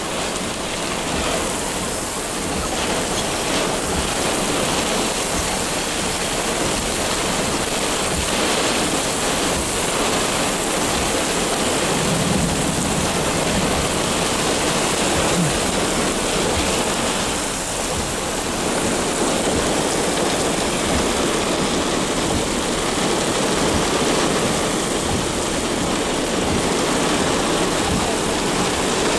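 Heavy rain from a severe thunderstorm pouring down in strong, gusting wind: a steady, dense hiss of downpour that never lets up.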